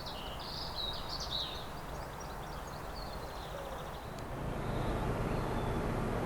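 Birds chirping over steady outdoor background noise, the chirps clustered in the first second and a half. About four seconds in, the sound changes to a louder, steady low rumble.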